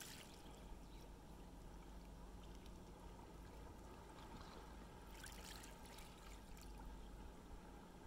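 Faint lapping of calm seawater at the shore, with one small ripple breaking in a brief hiss about five seconds in.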